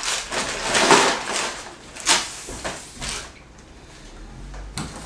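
Tissue paper and a paper gift bag rustling and crinkling as they are handled, which stops about three seconds in; a single short knock near the end.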